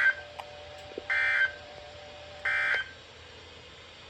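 Three short bursts of NOAA Weather Radio SAME digital data, about a second apart: the end-of-message code that closes the weekly alert test. A faint steady tone under them stops after the third burst.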